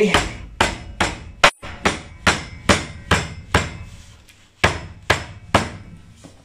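Wooden rolling pin pounding a lemongrass stalk on a wooden chopping board to bruise it: a steady run of sharp knocks, a little over two a second, with a brief pause about four seconds in.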